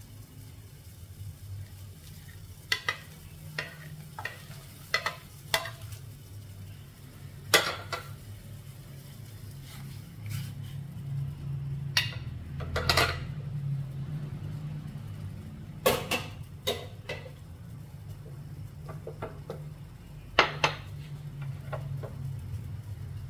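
A dozen or so sharp, scattered clinks and knocks of a plate and utensils against a large aluminium stockpot as dried fish is tipped into the broth and stirred, over a steady low hum.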